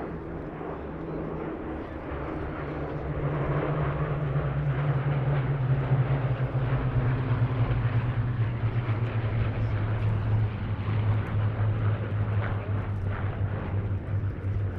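Piston-engined warbird's engine droning as the aircraft flies by. It grows louder a few seconds in, and its pitch sinks slowly as it passes.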